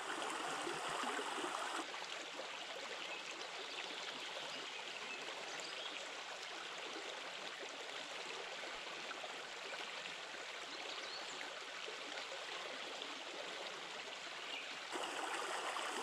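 A small wild forest brook, about a metre wide, flowing with a steady, even babble of running water; a little quieter through the middle stretch.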